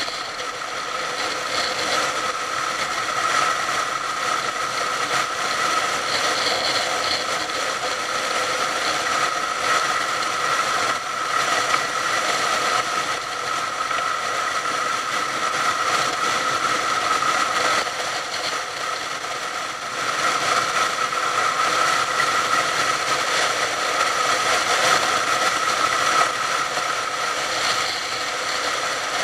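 Motorcycle running steadily at road speed, a held engine and drivetrain whine over wind noise; it eases briefly about eighteen seconds in.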